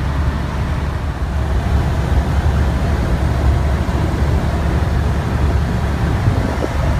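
Semi-truck's Detroit diesel engine and tyre and road noise heard from inside the cab while cruising on the highway, a steady low rumble.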